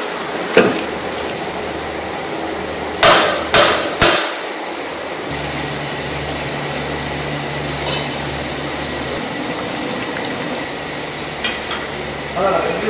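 A metal ladle knocking three times on the rim of a large steel cooking pot, about half a second apart, over a steady background noise.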